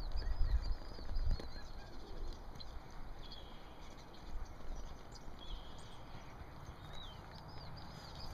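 Dull hoofbeats of a horse walking on soft dirt in the first second or so, then small birds chirping with short high calls, several at a time, on and off through the rest.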